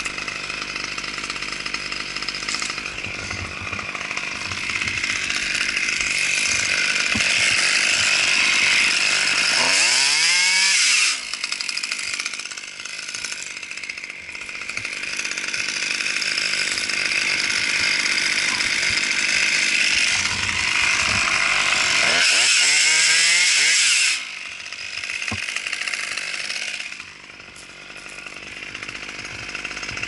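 Husqvarna T540 XP top-handle two-stroke chainsaw running at full throttle through a ponderosa pine trunk. Twice, about ten and twenty-three seconds in, the engine's pitch climbs sharply and then falls away to idle as the throttle is released.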